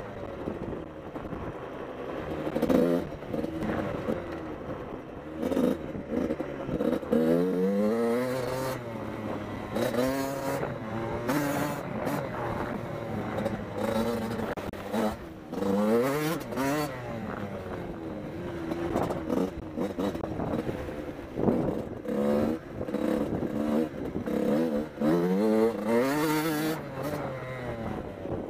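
Suzuki RM85L's 85cc two-stroke single-cylinder engine revving up and down again and again while the motocross bike is ridden, its pitch climbing through each gear and dropping back.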